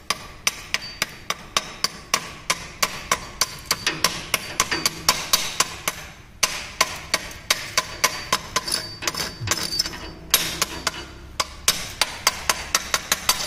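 Chipping hammer knocking slag off a freshly welded steel T fillet joint: quick, sharp metallic strikes, about three a second, each with a faint ring, pausing briefly twice.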